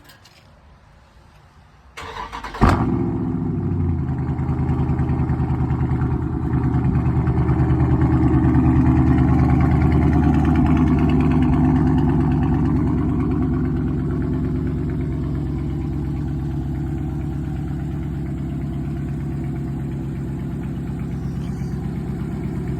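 Dodge Charger Daytona's engine cranking briefly and catching with a sharp flare about two and a half seconds in, then running at a raised idle that swells slightly and gradually settles to a steady idle.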